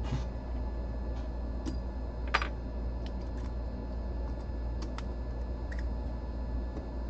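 Hot air rework station blowing steadily while the suspected faulty retimer chip is heated off a PlayStation 5 motherboard, with a few light clicks on top, the loudest about two and a half seconds in.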